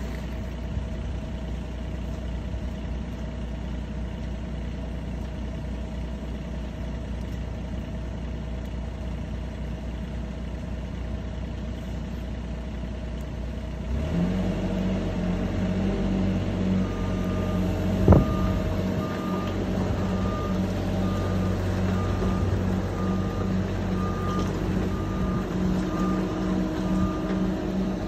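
Mini excavator engine idling steadily, then throttled up about halfway through as the machine sets off. Its travel alarm then beeps about once a second while it moves, and there is a single sharp clank shortly after the beeping starts.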